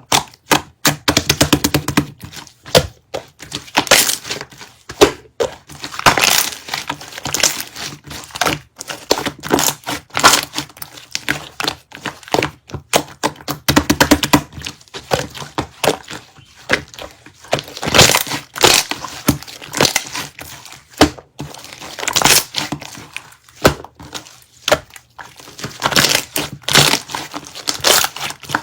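Slime being squished, pressed and poked by hand, giving rapid irregular clicks, pops and crackles with occasional louder snaps.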